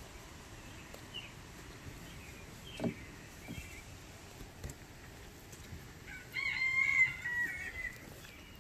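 A rooster crowing once in the background, a stepped call of about a second and a half near the end. Faint short chirps come earlier.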